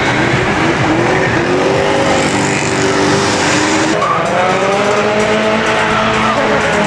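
Drift car engine revving hard, its pitch rising and falling with a sharp drop and climb again about four seconds in, over a steady hiss of tires sliding and squealing.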